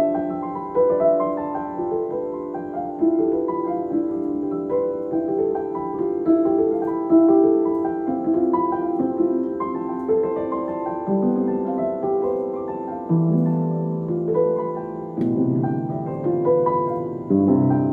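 Background piano music: a gentle piece of single notes struck about once or twice a second, each fading away, with a lower bass part stepping downward in the second half.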